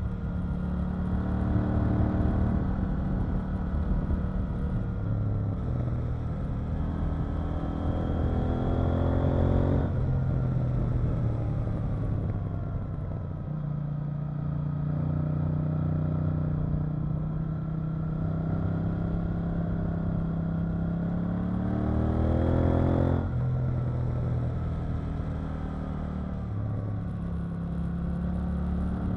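KTM 890 Duke R's parallel-twin engine under way on the road. Twice it pulls up in pitch under throttle, about ten seconds in and again near the end, and each time the pitch falls away sharply. In between it runs at a steady pitch.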